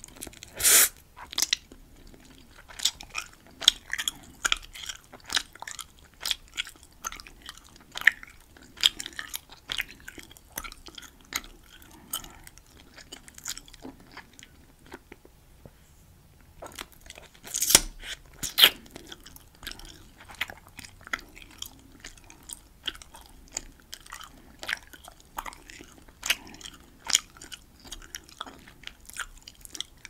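Close-miked chewing of Hubba Bubba Max Original bubble gum: a steady run of sharp clicks and snaps. It goes quieter for a couple of seconds around the middle while a bubble is blown, then two loud snaps come about a second apart.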